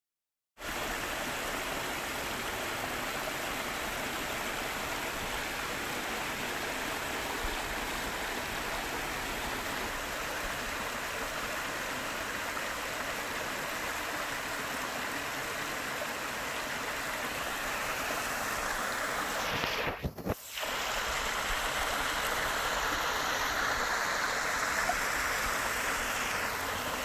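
Rushing stream water, a steady even rush. It breaks off for a moment about twenty seconds in and resumes slightly louder.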